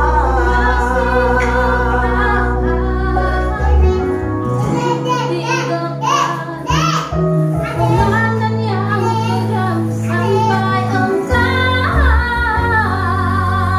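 A woman and a man singing a duet in turns over a music backing track with held bass notes. The voices waver in pitch on long notes.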